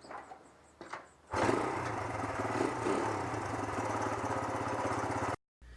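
A small engine, after a few faint clicks, starts about a second in, runs steadily and then stops abruptly.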